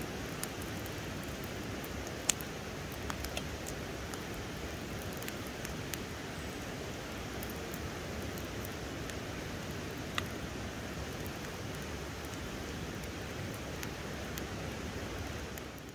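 Steady rushing of a river, with scattered sharp crackles and pops from a wood fire.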